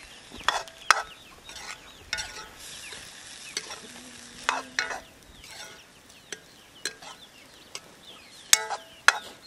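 Long steel ladle stirring and scraping greens in a black iron kadhai over a wood fire, with sharp metal clinks against the pan about eight times and the vegetables sizzling.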